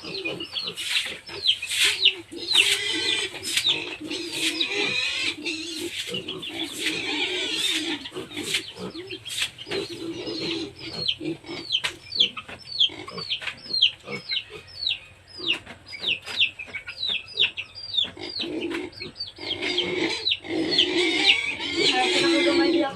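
Farmyard chickens and pigs calling: a fast, continuous run of high falling chirps, with lower calls and scattered clicks among them.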